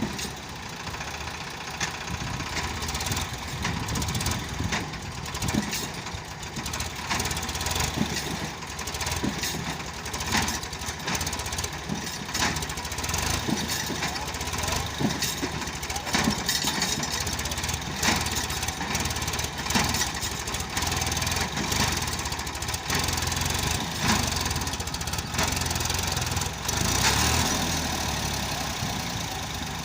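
Diesel engines of a JCB 3DX backhoe loader and farm tractors running steadily at work, with frequent short knocks and clanks throughout.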